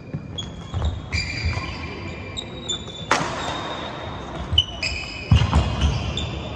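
A badminton doubles rally on a hard indoor court: shoes squeak sharply and often on the floor, over thudding footfalls, with sharp racket hits on the shuttlecock. The loudest hits come about three seconds in and again a little after five seconds.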